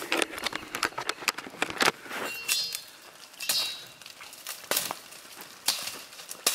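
Footsteps crunching through dry leaf litter and twigs on a forest trail, a string of irregular short steps.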